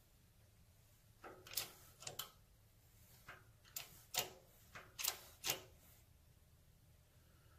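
Shop press pushing an oil seal into a motorcycle's aluminium points cover: a string of about ten sharp, irregularly spaced clicks over about four seconds, starting about a second in.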